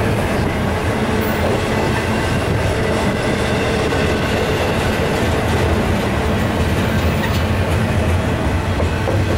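Double-stack intermodal container well cars rolling past at speed: a loud, steady rumble of steel wheels on the rails.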